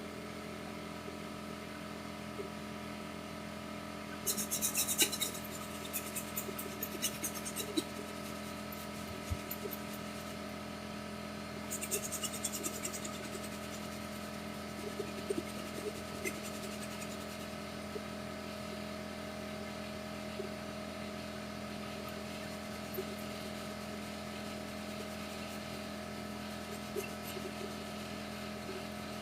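Steady electrical hum with two short bursts of rapid scratchy rubbing, about four and twelve seconds in, and a few faint handling clicks.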